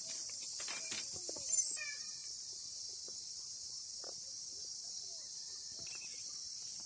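Steady, high-pitched drone of insects chirring, with one brief louder call about a second and a half in.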